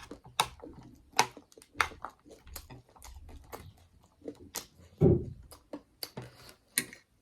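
Close-miked chewing of food, with irregular wet clicks and crunches from the mouth several times a second. There is a louder low thump about five seconds in.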